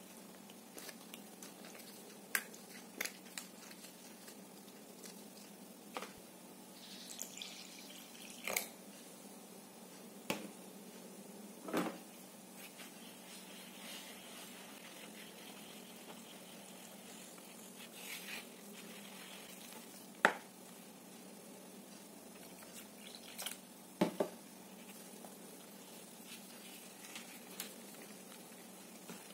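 A silicone whisk stirring thick flour batter in a plastic mixing bowl, with scattered sharp taps and clicks of the whisk and hands against the bowl, and short soft pours of liquid in between.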